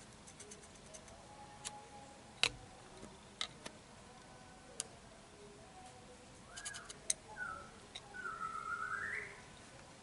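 Faint scattered clicks of a test pen's probe tapping the metal horn contact plates in a steering wheel hub. A bird calls in the background: short calls about six and a half to seven and a half seconds in, then a longer call that dips and rises, the loudest sound, near the end.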